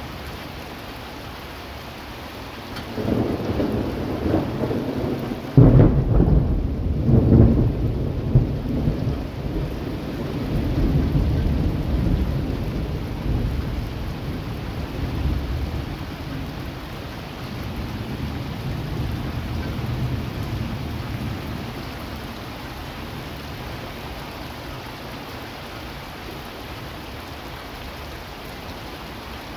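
Steady rain with a long peal of thunder. A rumble builds about three seconds in and breaks into a sudden loud crack just before six seconds. Uneven rolling rumbles follow and die away over the next fifteen seconds or so, leaving the rain alone.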